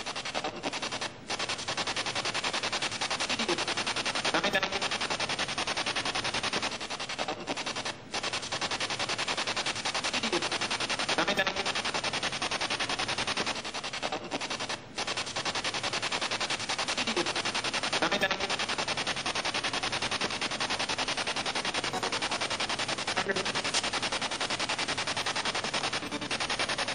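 Spirit box sweeping through radio stations: fast, even chopping static with brief scraps of voices, broken by a few short dropouts. One scrap is read as the word "come".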